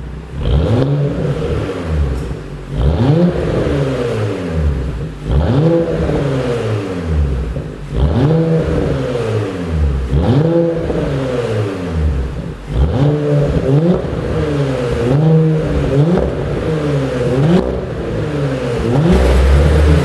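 Audi A7 55 TFSI's turbocharged 3.0-litre V6 revved again and again through an exhaust with a pop-and-crackle tune. Each rev climbs and falls back. The revs come slower and longer at first, then quicker and shorter in the second half.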